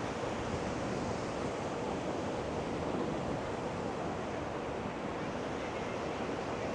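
Steady ocean surf washing on a sandy beach, mixed with wind blowing across the microphone.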